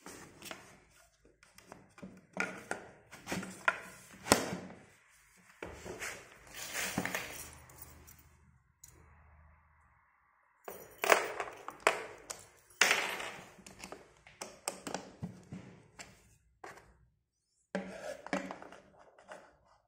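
Irregular knocks, clicks and scrapes of flat-pack furniture assembly: white particleboard cabinet panels and a hand screwdriver being handled and fitted together, with a short pause about halfway through.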